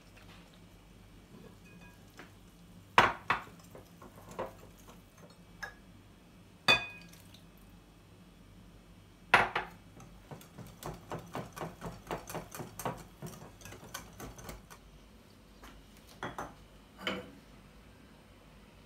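Wire whisk clinking against a glass mixing bowl as pancake batter is mixed: a few sharp clinks in the first half, then quick light taps of steady whisking, about four a second, and two more knocks near the end.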